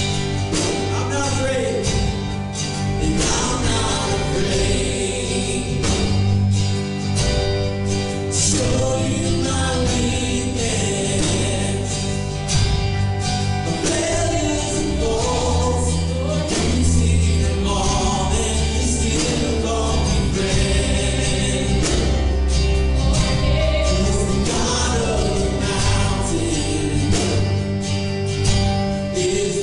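Live worship band playing a song: a woman sings lead with other voices joining in harmony, over strummed acoustic guitar and keyboard.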